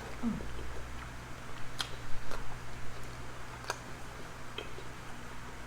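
Mouth sounds of eating: scattered sharp smacks and clicks of someone chewing, roughly one a second, over a low steady hum.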